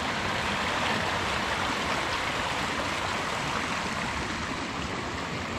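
Small fast-flowing stream (a burn) rushing over stones as it runs into a loch: a steady rush of water.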